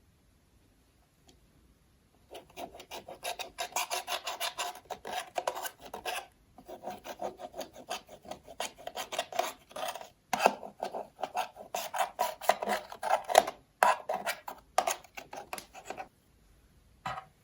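Slime being kneaded and squished by hand: a dense run of small crackling clicks and pops that starts about two seconds in and breaks off briefly a few times.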